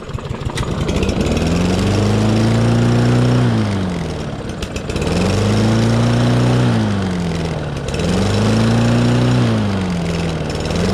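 Lawnmower engine catching after pull-starting and running unevenly, its speed surging up and sagging back about every three seconds. The owner thinks it is almost out of gas.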